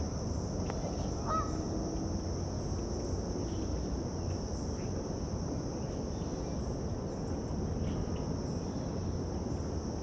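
Outdoor ambience at a lake: a steady low rumble and a steady high hiss, with a couple of faint short bird calls in the first couple of seconds.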